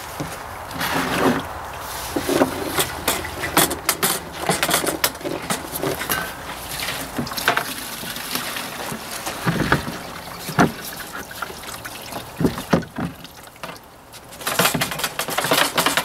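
Liquid sloshing around inside a removed John Deere 2032R fuel tank and pouring out, as the tank is flushed to wash out leaf debris, with irregular knocks and clatter from handling the tank. It grows louder again near the end.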